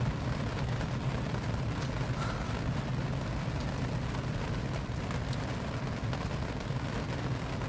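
Steady rain falling, a constant rushing noise heavy in the low end, with a few faint ticks of drops.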